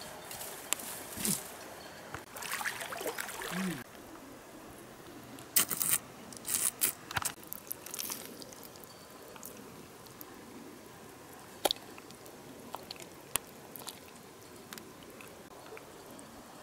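Wet mud and shallow water being stirred: irregular squelches, scrapes and small splashes, loudest about six to seven seconds in, then only scattered clicks.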